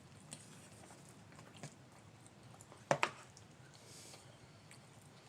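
A person chewing food, with a few faint clicks and one sharp double click about three seconds in.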